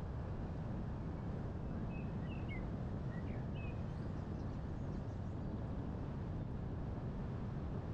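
Steady low rumble of wind and road noise from a moving car. A few short bird chirps come through about two to four seconds in.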